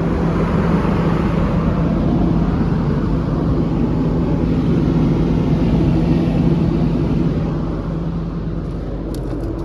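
Caterpillar 320D excavator's 6.4-litre diesel engine running steadily with a constant hum, easing slightly from about eight seconds in. A few light clicks near the end.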